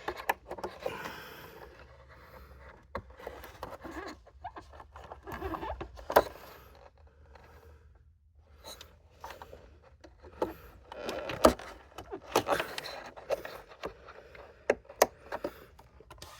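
Handling noise from work on motorcycle parts: scattered clicks, taps and short scrapes of plastic parts and wiring connectors being fitted, loudest in bunches around the middle and toward the end.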